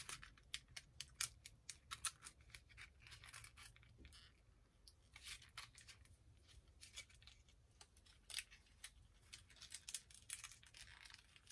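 Faint crinkling and irregular clicking of a small clear plastic accessory bag being handled and worked open by fingers.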